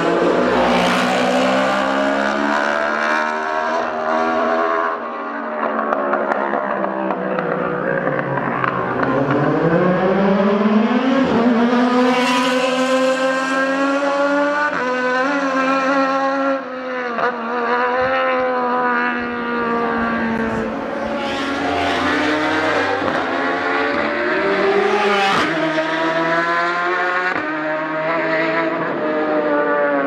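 Racing motorcycles at full throttle, passing one after another and accelerating hard through the gears. The engine note climbs and drops back at each upshift, with two bikes sometimes heard at once.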